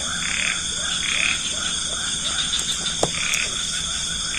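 Frogs calling, a short croak about every second, over a steady high-pitched drone. There is one sharp click about three seconds in.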